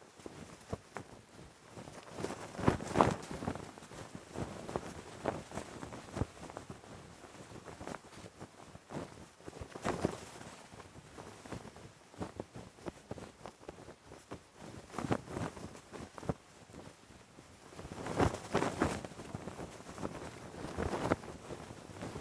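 Cloth flag flapping in the wind: irregular sharp snaps and rustles of the fabric, in gusts, loudest about 3 seconds in, around 10 seconds, and again from about 18 to 21 seconds.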